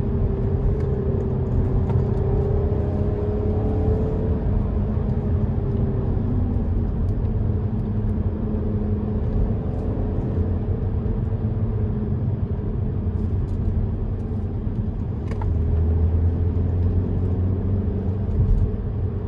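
Cabin noise inside a moving Audi A5 quattro: a steady engine hum over tyre and road rumble, the engine pitch rising and falling a little with the throttle, swelling slightly near the end.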